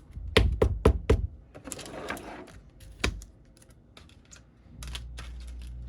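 A run of sharp clicks and taps: four quick, loud ones in the first second or so, then scattered lighter ones. A low steady hum comes in near the end.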